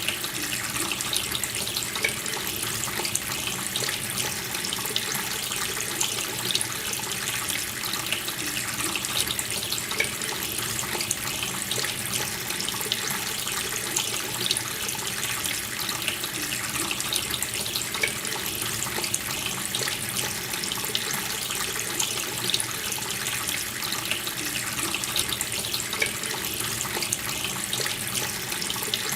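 Water running steadily from a tap in a continuous splashing stream.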